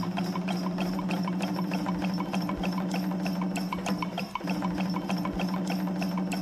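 Background music bed: a steady low drone under a fast, even ticking beat.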